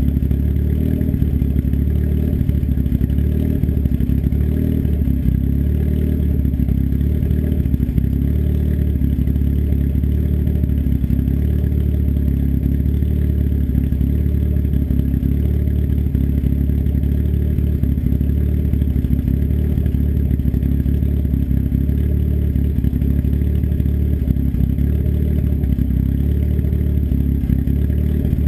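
Turbocharged engine with an S257 turbo and custom cams idling steadily through an open dump, a 3-inch turndown off the downpipe, while it warms up after a cold start. The idle stays even with no revving.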